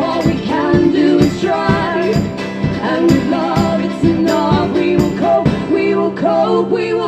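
Live band music with singing over a steady beat of percussive hits; the beat stops about six seconds in and the music carries on.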